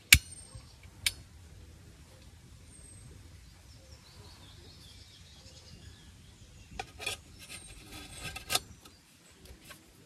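Metal clinks and rattles of a backpacking stove's cooking cup being handled and fitted onto its burner: a sharp clink at the start, another about a second later, and a cluster of clattering clicks near the end.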